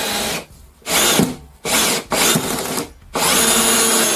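Ryobi RPD18C 18V brushless combi drill in low gear at maximum torque, driving a large screw into pine without a pilot hole. The drill runs in several short stop-start bursts, then in a longer steady run from about three seconds in.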